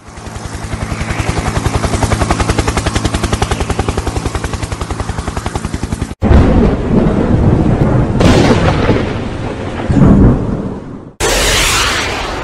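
Cartoon sound effects: a helicopter's rotor chopping fast and evenly, growing louder for about six seconds, then cut off abruptly. Heavy rumbling follows, with two louder booms, and near the end a loud hissing roar starts suddenly.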